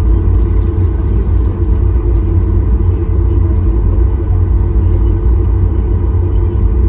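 Steady low rumble inside a Boeing 737 MAX 8 airliner, its CFM LEAP-1B engines running.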